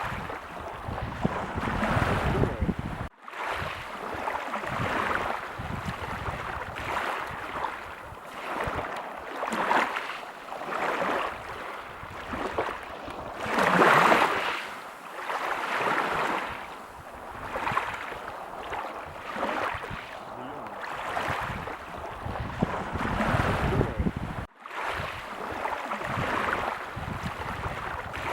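Ocean waves breaking on a beach: a steady wash of surf that swells and ebbs every couple of seconds, with the biggest break about halfway through. The sound cuts out for an instant twice.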